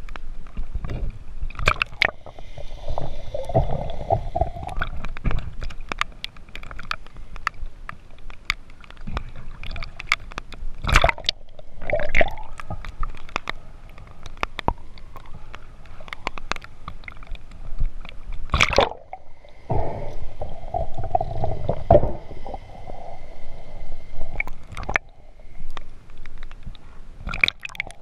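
Muffled water sloshing and gurgling heard underwater, with many sharp knocks and clicks, the loudest about eleven and nineteen seconds in.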